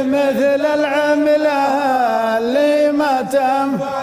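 Shailah, Gulf Arabic chanted poetry: layered male voices hold long, wordless chanted notes between verses. The pitch sways and dips low about two seconds in before returning.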